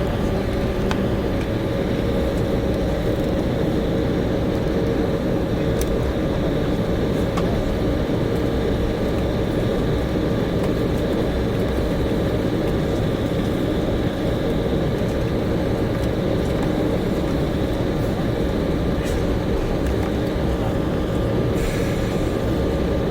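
Cabin noise inside an Embraer E190 airliner taxiing after landing: the steady rumble of its CF34 turbofan engines at low power and the air system, with a steady whine on top. A few faint clicks, and a brief hiss near the end.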